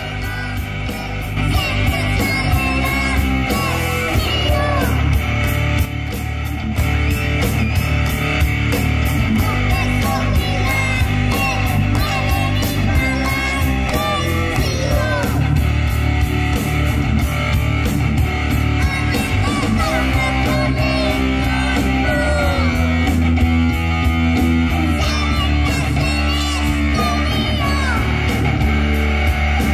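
Heavy metal band playing live: distorted electric guitar through a Marshall amp and drums keeping a fast steady beat, with sung vocals over them.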